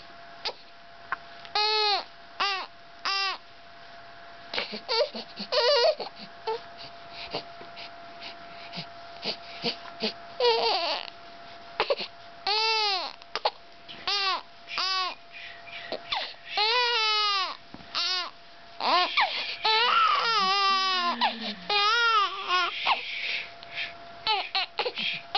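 A baby fussing and crying in short, high wails that rise and fall in pitch, coming in bursts with brief pauses between, over a faint steady high-pitched hum.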